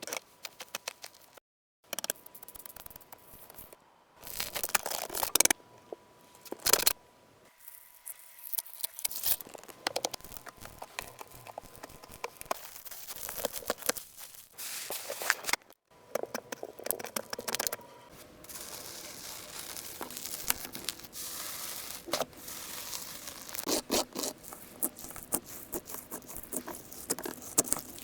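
Slime being handled: crackling, scraping and tearing sounds in uneven clusters of small clicks, broken by a few brief cuts to silence.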